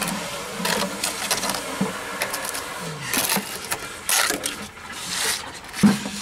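Hand trowel and sponge float scraping and rubbing fresh rapid-set repair mortar into a pitted concrete step, in irregular strokes, filling the holes in the surface. A single sharp knock near the end.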